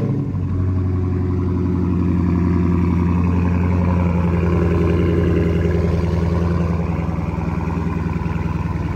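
Muffler-deleted 2022 Dodge Challenger Hellcat's supercharged 6.2-litre Hemi V8 idling steadily and loudly, just after a warm start.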